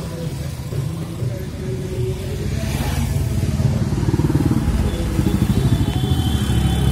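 Road traffic passing close by on a bridge: motorcycle engines running as they go past. The sound swells a few seconds in and stays louder and more pulsing toward the end.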